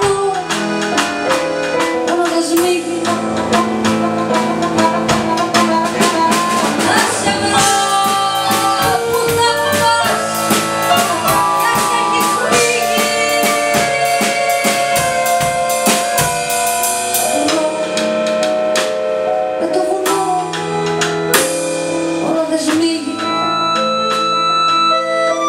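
Live band playing a tango-rebetiko arrangement on accordion, drum kit and stage keyboard, with a woman singing. The drums play busy, fast strokes at first and thin out about two-thirds of the way through, leaving sustained accordion and keyboard chords.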